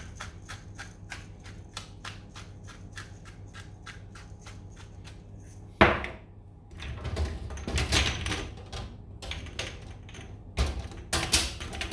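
Hand pepper mill being twisted, a steady run of quick grinding clicks about five a second. About six seconds in it stops with a sharp knock, followed by irregular rustling and scraping.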